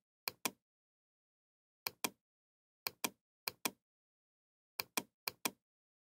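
Computer mouse clicking: six quick pairs of sharp clicks, spaced irregularly about half a second to a second and a half apart.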